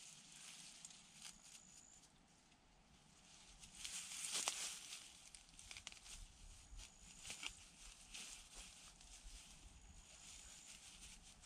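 Faint rustling of grass and a few small clicks and knocks as a forked wooden stake is handled and pushed into the ground, with a louder rustle about halfway through. A thin high whistle-like tone sounds faintly three times, each lasting about a second.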